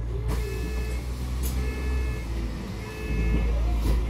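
Double-decker bus engine running with a steady low hum, heard from the upper deck. Over it, an electronic beep sounds on and off about every second and a quarter, four times.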